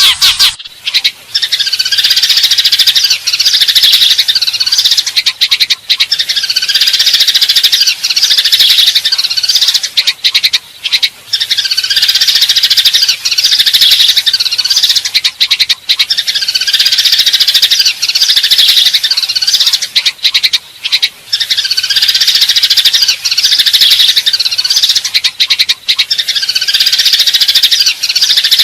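Eurasian tree sparrows chattering and chirping rapidly in a dense, agitated volley, the fighting chatter used as a lure call. It comes in runs of about four to five seconds with brief breaks between them.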